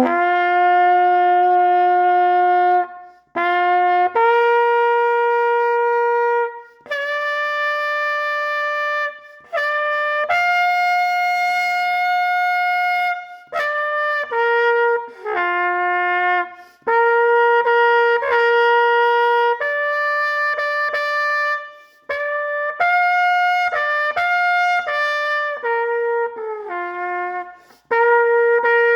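Solo trumpet playing a slow tune of long held notes, each steady in pitch, with short gaps between the notes and a few quicker notes in the middle.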